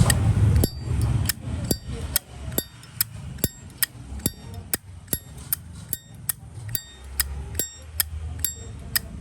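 Zippo lighter's hinged metal lid being flipped open and snapped shut over and over, a steady run of sharp metallic clicks with a short ring, about two or three a second. It is an unused lighter whose lid sound has been adjusted for a good click.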